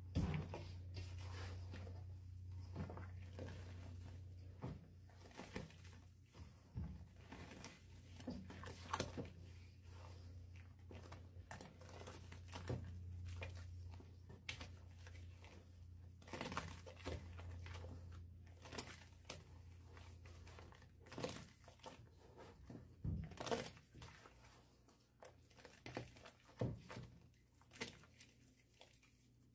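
Hands squeezing and crushing chalk reforms in a bowl of wet chalk paste: irregular soft squelches and crackles as the lumps break up in the mix.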